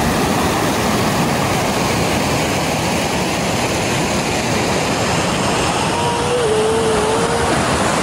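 Rogue River rapids: white water rushing over rock ledges in a loud, steady rush.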